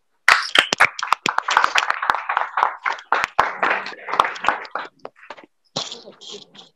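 Applause from a small group of people: dense hand clapping for about five seconds, then thinning to a few scattered claps.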